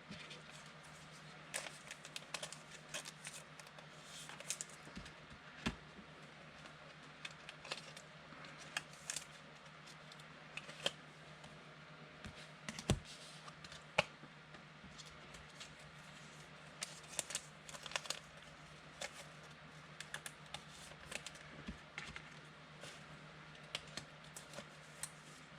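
Faint, irregular light clicks and taps, a few to several a second, over a steady low hum.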